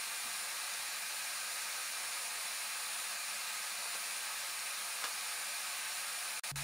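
Electric space heater running in a small garage: a steady, even airy hiss with no change in level.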